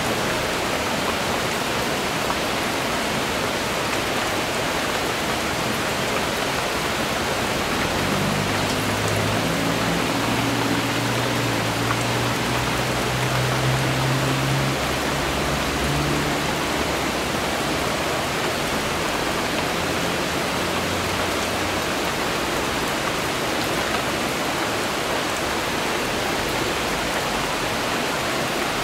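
Steady rain falling, an even hiss of drops with no pauses. Low steady tones hum beneath it from about 8 to 22 seconds in.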